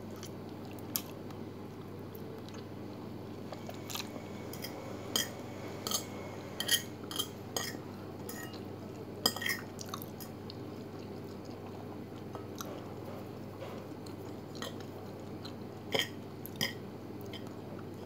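A person chewing a mouthful of spaghetti, with a fork now and then clicking and scraping against the plate in short sharp ticks.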